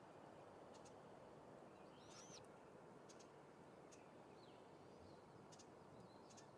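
Near silence: a low steady hiss with a handful of faint, short high-pitched chirps scattered through, one a longer curved call about two seconds in.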